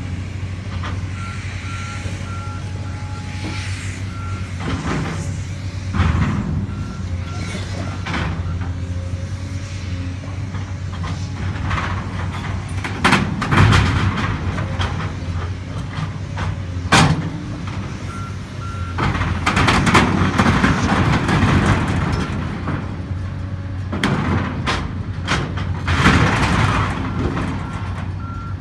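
Volvo excavator's diesel engine running steadily while a beeping alarm sounds in short spells. Loud metallic clanks and crashes come repeatedly, with longer spells of crashing about two-thirds of the way in and again near the end.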